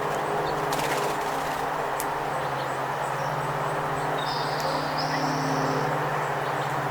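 Wind rushing over the microphone, with a steady low hum underneath and a few sharp taps. A high, thin songbird call is held for about two seconds, starting about four seconds in.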